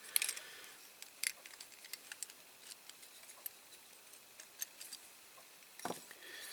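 Faint, scattered light clicks and ticks of small die-cast metal toy parts being handled and pulled apart, with one slightly fuller knock near the end.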